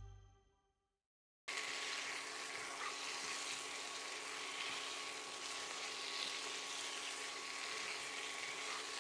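Mutton pieces sizzling in oil in a pan as they are roasted and stirred: a steady frying hiss that starts about a second and a half in, after a brief silence.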